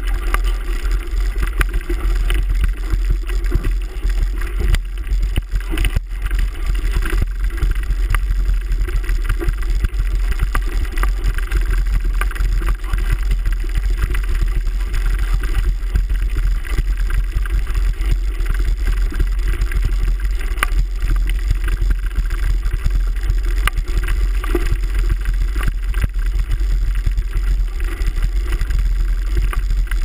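Mountain bike rolling over loose gravel, picked up through a handlebar-mounted GoPro: a heavy low rumble of mount vibration with dense, irregular crunching and rattling from the tyres and bike on the stones.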